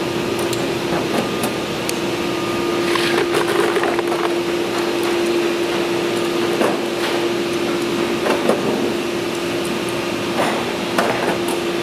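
Steady hum of the factory's CNC machines running in the background, with a scattered handful of sharp metallic clicks as clecos are set into the aluminium rudder skin with cleco pliers. A brief falling whine comes about three seconds in.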